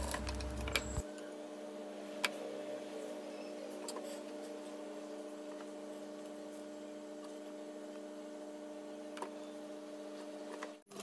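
Faint steady hum with a few scattered light clicks and taps as fabric and parts are handled at a sewing machine that is not stitching.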